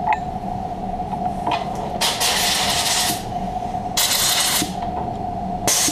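Compressed-air blow gun blasting chips off a freshly milled aluminium part in three hissing blasts: about a second long, then half a second, then a short one near the end.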